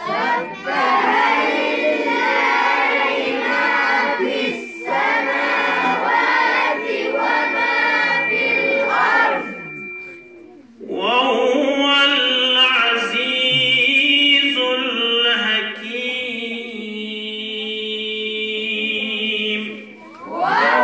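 A group of children chanting a recitation together in unison. There are two long phrases with a short break about ten seconds in, and the second ends on long held notes.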